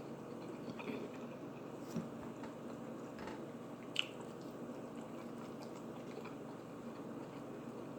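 A person chewing soft food close to the microphone, with wet, squishy mouth sounds. There are two small sharp clicks, about two and four seconds in.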